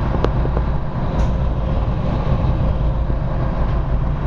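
Steady rumble of a tour boat underway: its engines running and the wake churning behind the stern.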